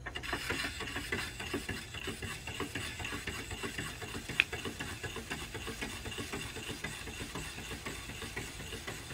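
Bailey electric pottery wheel running while about five pounds of wet clay is centered by hand: a steady low motor hum under the rubbing and squishing of hands on the spinning clay. One brief sharp click about four and a half seconds in.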